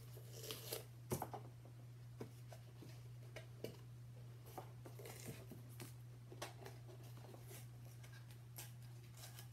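Faint handling of a cardboard tube and blue painter's tape: scattered light taps, clicks and rustles at irregular intervals, over a steady low hum.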